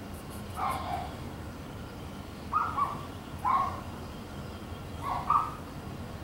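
An animal's short calls, mostly in quick pairs, repeating every second or two over a low steady hum.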